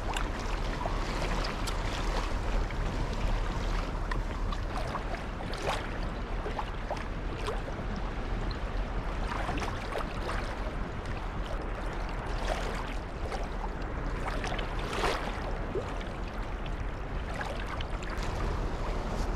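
Sea water lapping and slapping against the plastic hull of a Hobie Pro Angler kayak under way, a steady wash broken by frequent small splashes. Wind rumbles on the microphone underneath.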